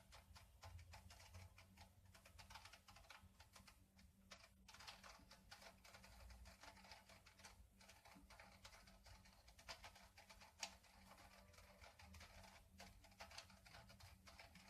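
Faint, rapid, irregular clicking of a plastic Rubik's cube as its faces are turned over and over in a repeated move sequence.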